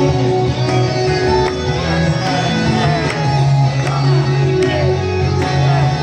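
Idol pop song with a steady beat, played loud over a stage sound system.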